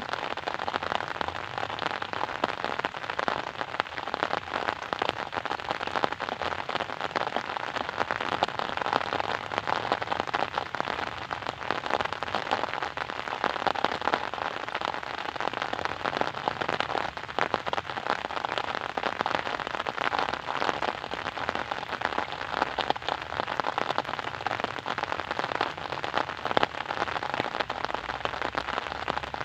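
Steady rain falling and pattering on a surface, a dense, even stream of fine drop ticks.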